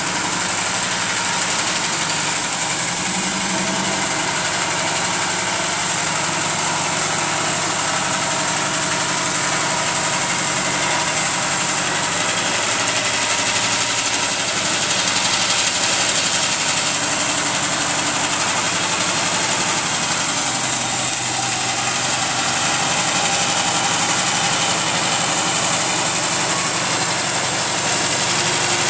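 Yates Y30 bandsaw running and resawing a narrow walnut board, a steady machine noise with a constant high whine over it.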